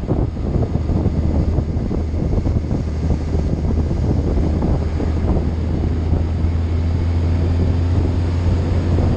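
Vehicle on the move: wind buffeting the microphone over a steady low engine drone.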